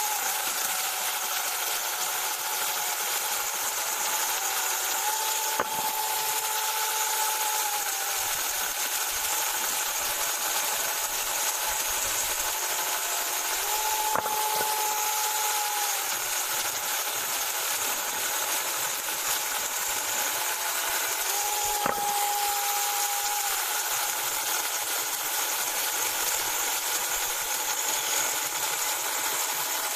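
Small cordless one-handed electric mini chainsaw running steadily and cutting through a wooden log, the chain chewing through the wood. A humming note comes and goes several times over the cutting noise.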